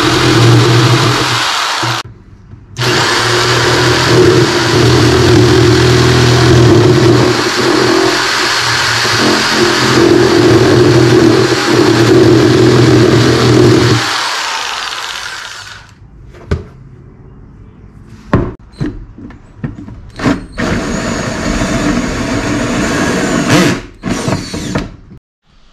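Corded jigsaw running and cutting through a thin plastic storage bin, with a brief stop about two seconds in; the saw winds down and stops about two-thirds of the way through. Then come quieter clicks and handling knocks, and a short run of a cordless drill near the end.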